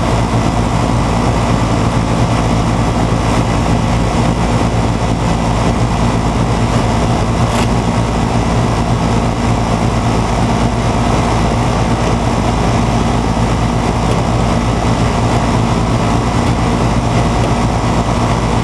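Outdoor air-conditioner condensing unit running steadily: condenser fan and compressor humming, the compressor running under its newly fitted hard start kit. A single brief click about seven and a half seconds in.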